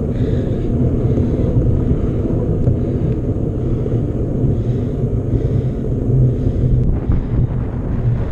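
Steady, loud low rumble of wind buffeting the microphone during a mountain bike ride.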